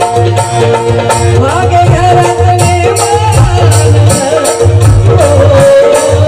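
Music: a steady drum beat with regular percussion strikes under held chords, and a wavering melody line over them.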